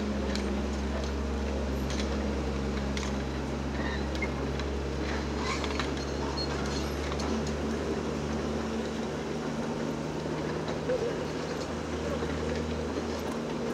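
Diesel engine of heavy construction machinery running steadily at a low note, with scattered light knocks and clicks over it.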